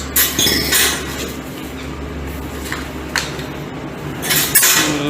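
Clinking and rattling of the hand mixer's metal beater attachments being handled, in a few short bursts with a sharp click about three seconds in.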